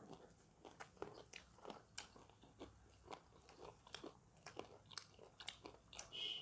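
Quiet, close-up crunching and chewing of crispy fried chicken: an irregular run of small crunches and wet clicks.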